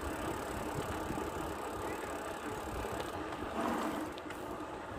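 Steady rushing noise of riding a bicycle, with wind on the microphone and the tyres rolling on the path.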